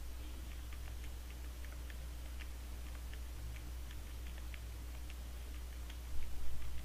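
Faint, irregular clicking of keys being pressed, several a second, over a steady low electrical hum, as a numerical result is worked out; a brief dull bump near the end.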